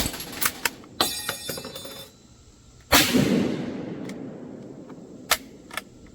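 A Gewehr 88 Commission rifle firing one 8mm Mauser round about three seconds in, the shot echoing away over about two seconds. Before it come sharp metal clicks and a brief ringing metallic rattle, and a few sharp clicks follow it.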